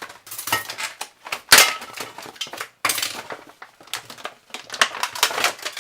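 A new blowtorch being unpacked by hand: stiff plastic packaging crackling and parts clattering in a run of irregular clicks and knocks, the loudest about one and a half seconds in.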